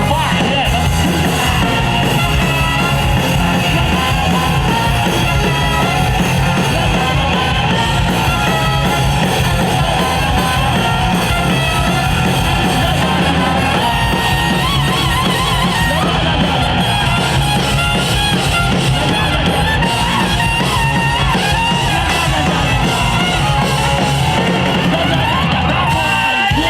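Live rock band playing a loud instrumental passage with guitars and drums, steady throughout.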